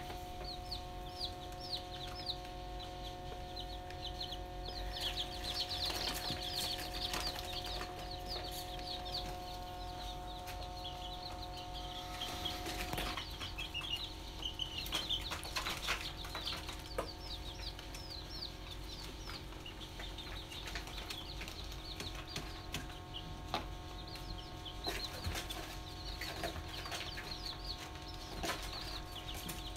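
Young domestic chicks peeping continuously, many short high-pitched chirps overlapping, busiest for a few seconds near the start and again around the middle. A steady hum sits underneath, part of it dropping out about halfway, with scattered light clicks.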